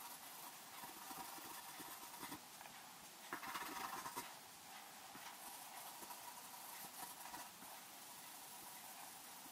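Pencil scratching on paper as it hatches and shades in quick strokes, faint, with a louder stretch of strokes about three and a half seconds in.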